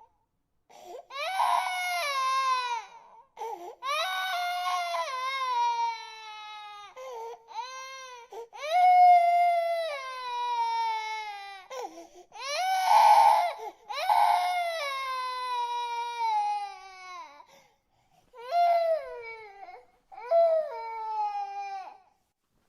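Baby crying in a run of long wailing cries, each falling in pitch, broken by short catches of breath.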